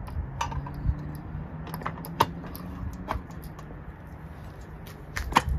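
Scattered light clicks and taps from hands handling the steel handle of a pneumatic air bag jack and its brass valve fittings, over a steady low hum.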